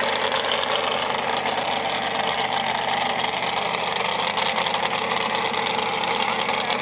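Pull truck's engine running steadily at a slow idle through its open upright exhaust stacks.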